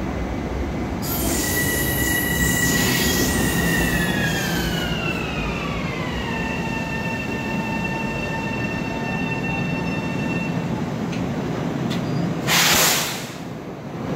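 LIRR M7 electric train braking to a stop: a high whine from its electric propulsion falls in pitch, then holds steady before fading out, over a low rumble. Near the end comes a short, loud hiss of air.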